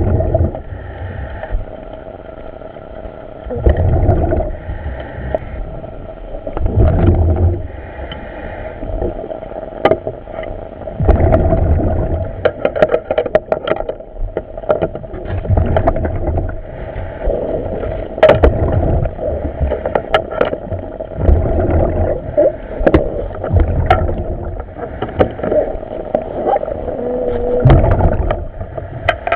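Diver's helmet audio over the dive radio: a steady hum with surges of bubbling exhaust about every three to four seconds as the diver breathes, and scattered clicks and knocks.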